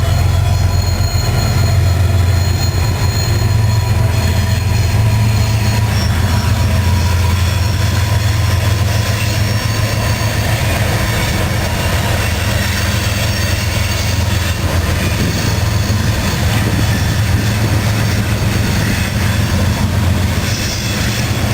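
Freight train passing: a steady low diesel drone with thin high wheel-squeal tones in the first few seconds, giving way to the even rumble of freight cars rolling by.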